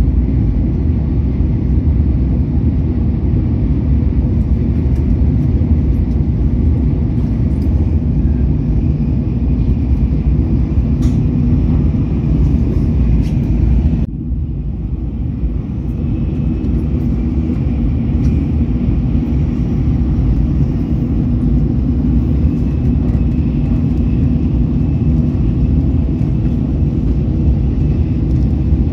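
Steady low rumble of a Shinkansen bullet train running at speed, heard inside the passenger cabin. About halfway through the sound drops suddenly to a slightly quieter, less hissy rumble.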